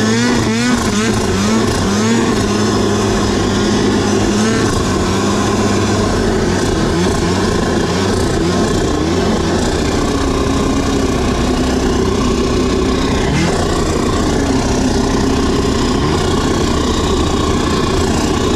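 Snowmobile engine running while riding, its pitch climbing and falling as the throttle is worked.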